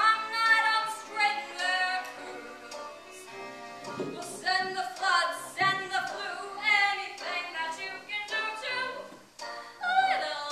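A woman singing a musical-theatre song live into a handheld microphone, in sung phrases with a brief break about nine seconds in.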